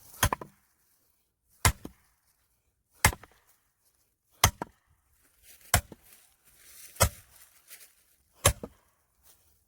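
An axe chopping firewood: seven sharp blows of the blade into wood, one about every second and a half.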